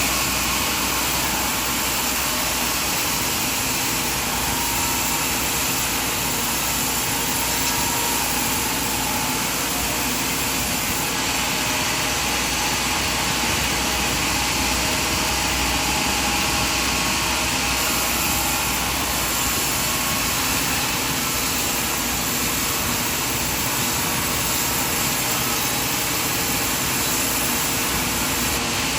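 Sawmill machinery running with a steady, even whir, with no distinct strikes or changes.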